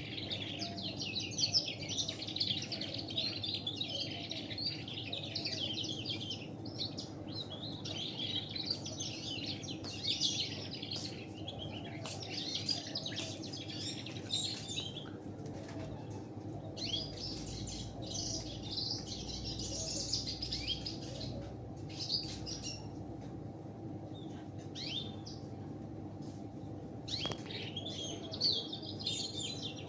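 Small finch singing rapid, high twittering song phrases in red siskin style, with a short break in the middle and sparser notes later, over a steady low background hum.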